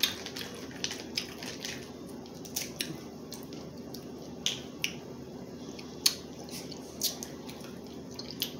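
Scattered short, sharp, wet clicks and snaps of crab legs being eaten by hand, irregular and a second or so apart.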